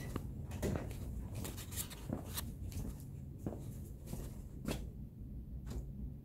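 Scattered light taps and rustles from footsteps and a handheld phone being moved about, over a steady low hum.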